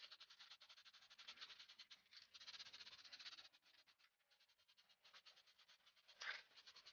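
Faint, fast scratching strokes in an even rhythm that thins out about halfway, with one brief louder scrape about six seconds in.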